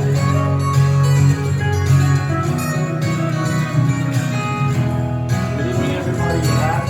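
Acoustic guitar strummed in a wordless instrumental passage of a song, chords ringing on with regular strokes.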